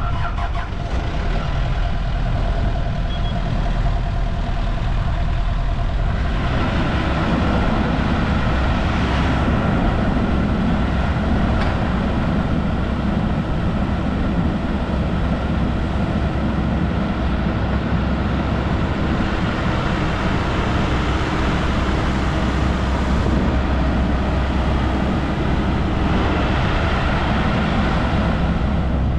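Diesel engine of a 2016 Komatsu PC78US-10 hydraulic excavator running steadily, the sound growing fuller and louder about six seconds in.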